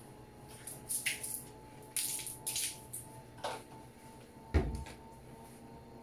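Panasonic Ag+ 16 kg top-load washing machine spinning a load of towels at its final spin speed. The motor gives a steady whine that creeps slowly up in pitch, with several short swishing noises and one loud thump about four and a half seconds in.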